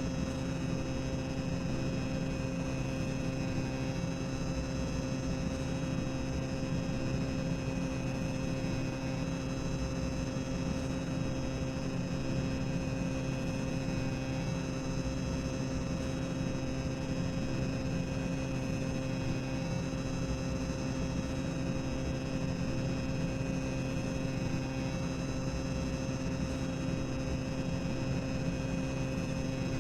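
Boiler-room ambience sound effect: a steady, unchanging low machinery rumble with a constant hum.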